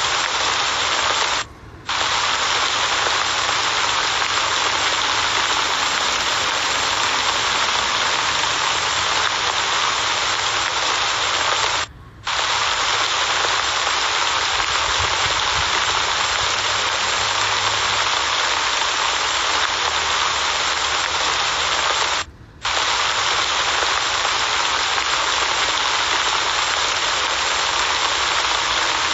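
Steady, heavy rain falling: a dense, even hiss that cuts out briefly three times, about two seconds in, near the middle and about three-quarters of the way through.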